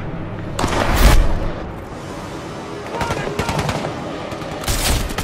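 Movie battle-scene sound effects: a heavy blast about a second in, then bursts of automatic gunfire, thickest near the end, over a music score.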